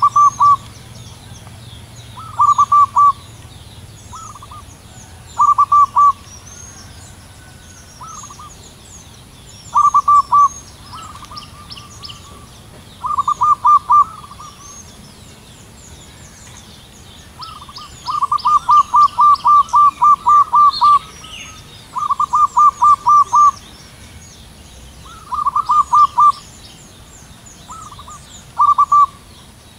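Zebra dove cooing: repeated phrases of quick staccato notes, each a short burst of a few to a dozen rapid coos, coming every two to three seconds, with the longest run a little past halfway. Faint high chirping sounds behind it.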